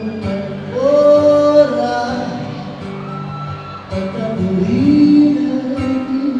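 Live band music: a male singer holding long sung notes over electric guitar, with a sharp hit about every two seconds.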